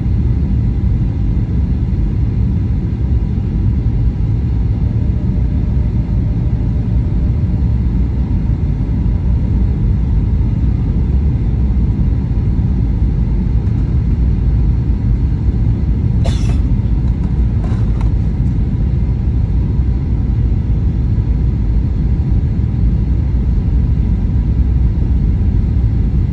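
Steady low rumble of cabin noise inside a Boeing 737-900 on its approach descent: the CFM56-7B engines and airflow over the fuselage heard through the cabin. Two brief clicks come about two-thirds of the way through.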